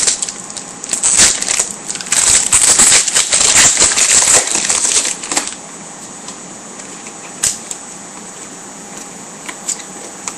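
A 2009 Bowman Chrome football card pack being torn open, its wrapper crackling and crinkling. The crackle stops about five seconds in and gives way to a few faint clicks.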